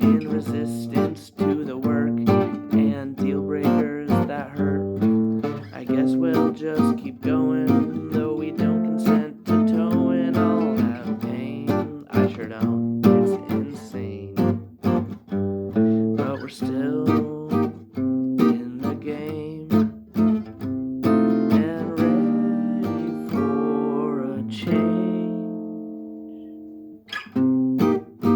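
Acoustic guitar music, plucked and strummed in a continuous instrumental passage. Late on, a chord is left ringing and fades out before the playing picks up again near the end.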